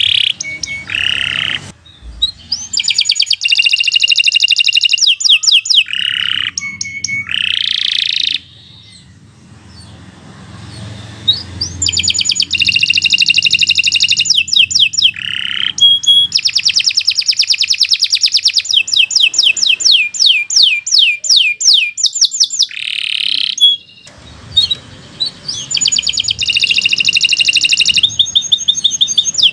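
Domestic canary singing a long song of rapid trills, fast runs of repeated notes with short buzzy phrases between them, broken by brief pauses and a quieter stretch about nine seconds in.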